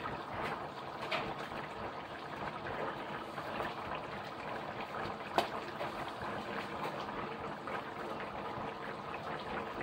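Paella broth with the rice in it boiling in a wide paella pan, a steady bubbling. A single sharp click about halfway through.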